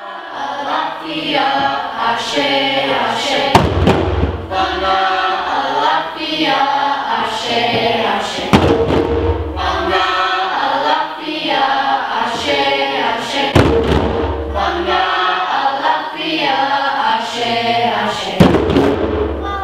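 A group of children singing a chant together while playing djembes, with a loud unison bass stroke on the drums about every five seconds and lighter hand strokes between.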